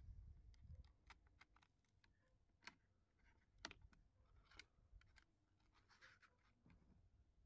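Near silence with faint, irregular clicks and light scratches: a cloth sanding belt being handled and fitted onto a red plastic hand-sanding holder.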